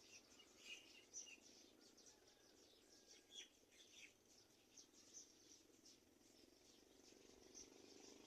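Faint, scattered bird chirps over a steady low hum, thickest in the first few seconds.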